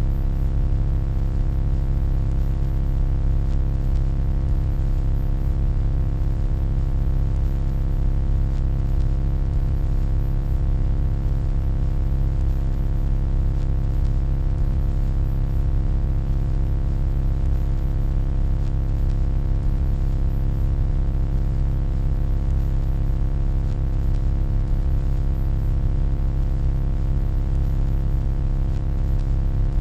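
Steady, deep electronic hum made of several layered tones, with a faint hiss and a thin high-pitched tone above it, unchanging throughout.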